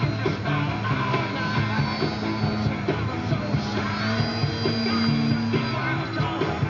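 Rock music with a steady beat and singing.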